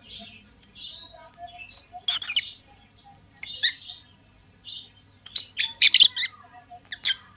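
Lovebirds chattering with soft twittering, broken by loud sharp chirps about two seconds in and a quick run of them about five and a half seconds in.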